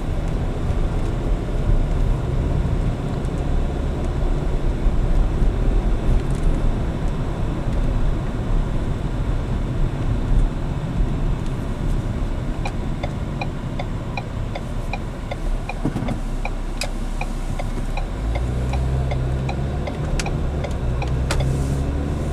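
Road and engine noise inside a 2015 Ford Edge's cabin while driving, a steady low rumble. In the second half a regular ticking runs for several seconds at about two ticks a second, typical of the turn-signal indicator.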